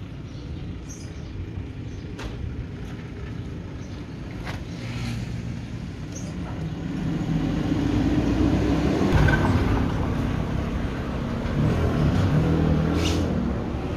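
A car engine running close by in street traffic, getting louder about halfway through and peaking twice.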